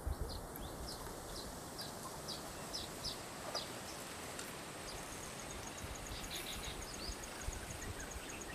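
Small birds calling: a run of short, high, falling notes about two a second, then a fast even trill of very high ticks, about six a second, in the second half, over a faint steady outdoor hiss.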